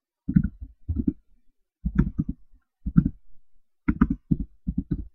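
Computer keyboard typing: short, dull keystrokes in small clusters of two to four, about once a second, as text is entered into a form field.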